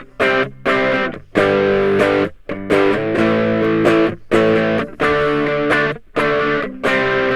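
Ibanez GAX30 electric guitar on its bridge humbucker, played through a TS9-style overdrive pedal with a noise gate on. It plays distorted chords in short phrases, and each chord is cut off abruptly to silence between phrases.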